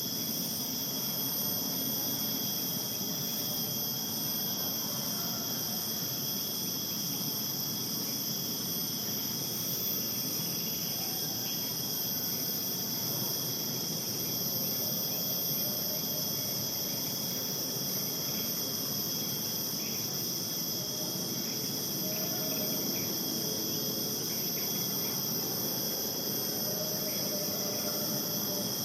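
Chorus of insects shrilling steadily at several high pitches, one of them pulsing evenly, over a low steady background hum.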